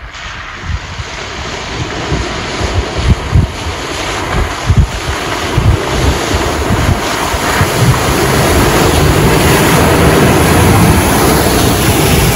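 Wind buffeting the microphone in irregular low thumps, over a four-wheel drive's engine and the slosh of muddy water as it drives through flooded ruts, the noise growing louder as the vehicle comes closer.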